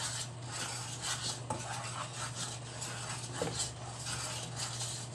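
Wooden spatula stirring and scraping caramel sauce in a non-stick frying pan, in irregular strokes, over a steady low hum.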